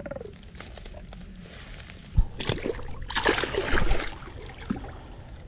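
A large catfish is released into shallow river water at the bank and thrashes away: a sharp thump about two seconds in, then a second or two of splashing and sloshing that dies down.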